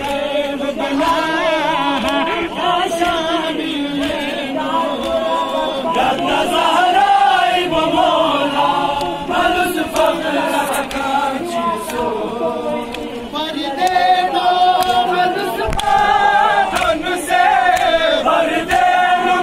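A crowd of men chanting a Shia Muharram lament (nauha) together, with hands slapping on chests in time (matam).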